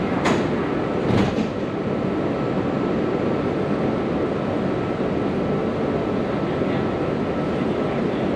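Hanoi Cát Linh–Hà Đông metro train running along the line, a steady rumble with a faint steady tone, heard from inside the carriage. Two sharp clicks stand out near the start, about a second apart.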